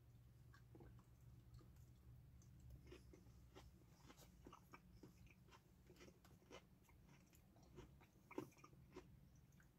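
A person chewing a bite of chicken sandwich, faint, with irregular small wet clicks and crunches and one sharper click near the end, over a low steady hum.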